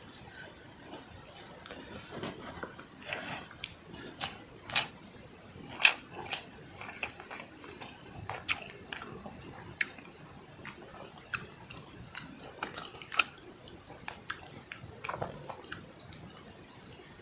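A person chewing while eating pan-fried rohu fish with rice, with irregular sharp clicks and small mouth and finger smacks.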